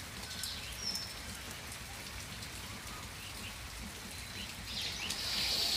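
Steady outdoor evening hiss with the sound of light rain, with a few faint short chirps; a louder breathy hiss swells about five seconds in.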